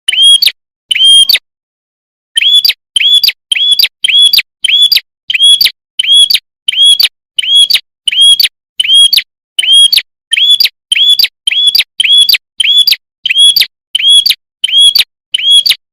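Prenjak kepala merah (red-headed prenjak) lure call: a loud, clear, short arched note repeated over and over at about one and a half notes a second, with a brief pause about a second in.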